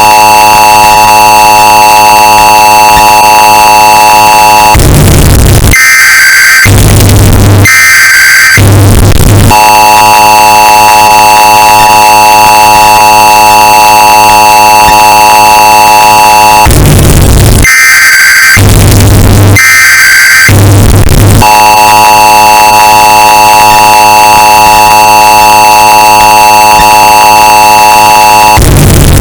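Emergency Alert System alert, bass boosted and clipped into heavy distortion: the steady two-tone attention signal blares three times, each run several seconds long, broken by harsh buzzing bursts of the digital header data with a deep bass drone under them.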